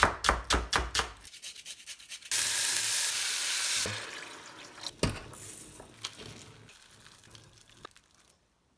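A knife chops scallions on a bamboo cutting board, about four strokes a second, for the first second or so. Then comes a loud sizzling hiss of about a second and a half as water is poured into a hot pot of frying ground pork. A single knock and a few faint clinks follow as the sound dies away.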